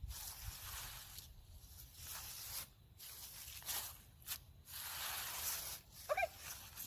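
Dry fallen leaves crunching and rustling underfoot in uneven bursts as a person moves about and steps away, with a brief high squeak about six seconds in.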